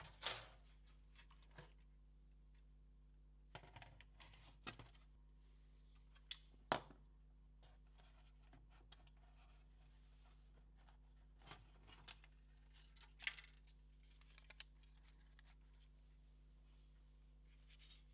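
Scattered light clicks, taps and scrapes of PS4 Pro parts being handled during disassembly, over a low steady hum. The sharpest clicks come just after the start, near the middle and about two-thirds of the way in.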